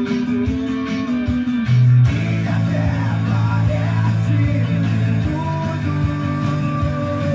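Rock music playing, led by guitar over a bass line, with the bass shifting to a new low note about two seconds in.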